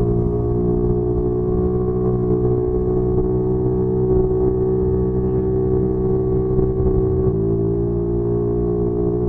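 A vehicle engine running at a steady speed, with a small jump in pitch about seven seconds in.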